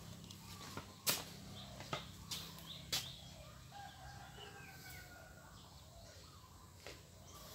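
A few sharp knocks in the first three seconds, then a rooster faintly crowing once, about halfway through.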